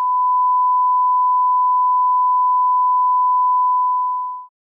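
A steady 1 kHz sine-wave reference tone, the line-up tone that runs with colour bars at the head of a programme. It holds one unchanging pitch and level and cuts off sharply near the end.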